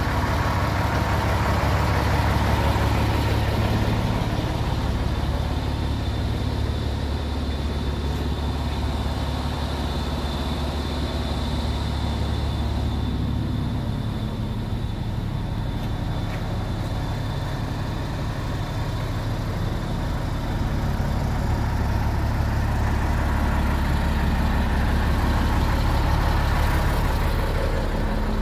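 Iveco TurboStar 190.36 truck's diesel engine idling steadily.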